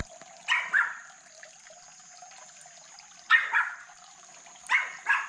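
A dog barking in three short bouts: about a second in, just past three seconds, and twice near the end.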